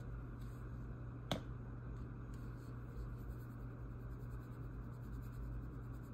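Seasoning shaken from a shaker bottle onto a raw fish fillet on a glass plate: a faint, steady scratchy rustle of falling grains with a few light ticks. One sharp click comes about a second in, over a steady low hum.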